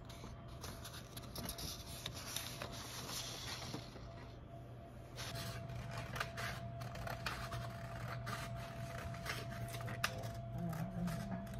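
Office printer feeding out a printed sheet, then scissors cutting through paper in a run of irregular snips with paper rustling.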